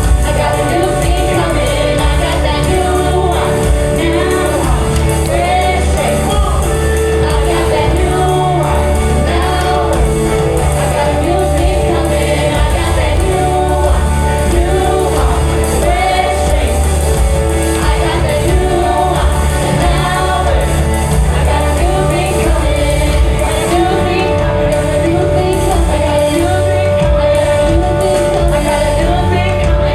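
Live gospel praise music: singers and a choir over a band with a steady bass.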